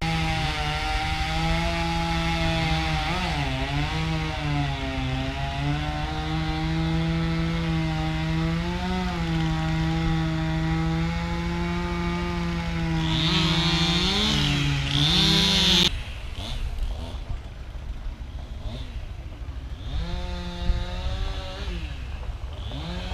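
Small two-stroke engine running at high speed, most likely a chainsaw, with its pitch dipping and recovering as if under load, climbing higher just before it cuts off abruptly about 16 seconds in; it runs again briefly near the end.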